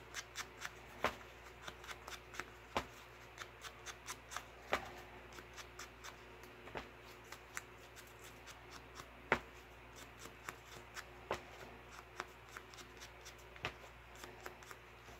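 Ink blending tool dabbed on an ink pad and rubbed around the edges of small paper pieces: a string of soft, irregular taps and scuffs, with one sharper tap about nine seconds in, over a faint steady hum.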